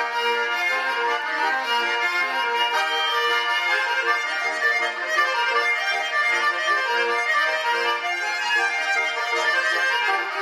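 Russian garmon (button accordion) playing a traditional village dance tune (naigrysh): a continuous run of melody over steady chords, without pause.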